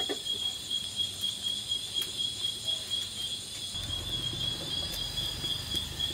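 Crickets chirring steadily in a high, fast-pulsing trill. A brief metal clink comes right at the start, and a low rumble joins about two-thirds of the way through.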